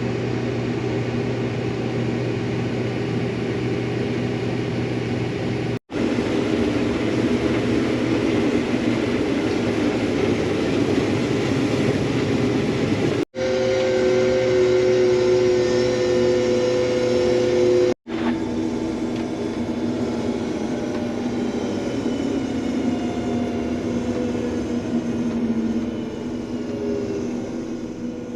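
Combine harvester running steadily in the soybean field, a constant low engine hum over mechanical noise, heard across several short clips joined by abrupt cuts. In the last clip some of the tones slowly drift in pitch.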